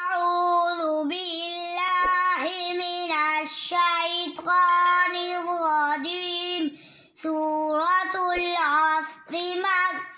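A young boy's voice chanting Quranic recitation in long, held melodic phrases, with short breaks about seven seconds in and near the end.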